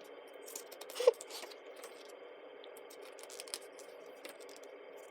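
Faint paper rustling and scattered light clicks from handling a photobook's pages, with one sharper click about a second in.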